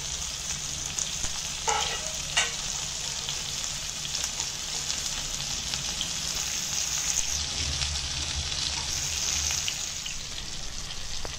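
Masala-coated pomfret shallow-frying in hot oil in a non-stick pan: a steady sizzle, with a couple of sharper crackles about two seconds in.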